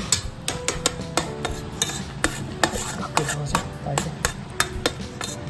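Kittens eating from a metal plate of cat food: irregular sharp clicks and crunches, about two or three a second, of food and teeth against the plate. Faint background music runs underneath.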